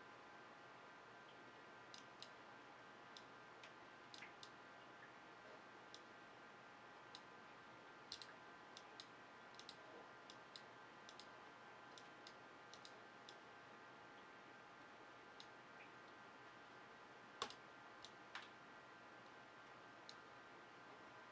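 Left button of a Logitech G703 gaming mouse clicked again and again at irregular intervals, many clicks in close pairs, the loudest about seventeen seconds in. The mouse has a faulty left click.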